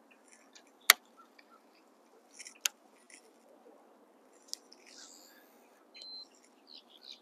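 A few sharp clicks or taps, about a second, near three seconds and four and a half seconds in, with faint rustling and small crackles between.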